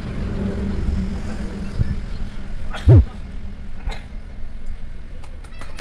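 Open microphone of an outdoor public-address system carrying a low steady hum, with one loud thump about three seconds in and a few faint clicks near the end.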